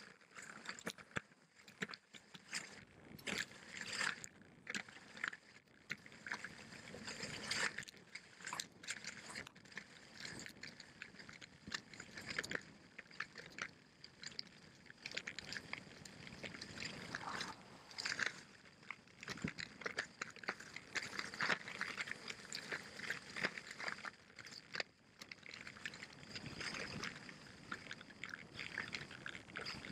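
Salomon cross-country skis sliding fast over snow, a continuous hiss broken by uneven crunching and scraping.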